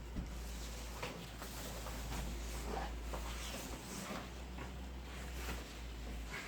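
Packaging being handled during an unboxing: faint rustles and light ticks over a steady low hum.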